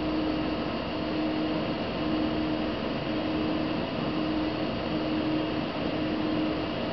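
Steady machine hum and hiss, with a low hum that swells and fades about once a second.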